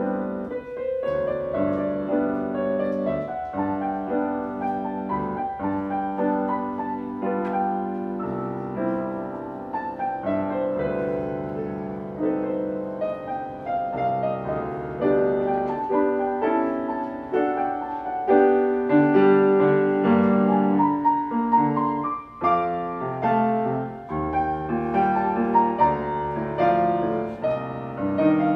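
Solo piano piece played live, notes and chords running on without a break, with a louder passage a little past the middle.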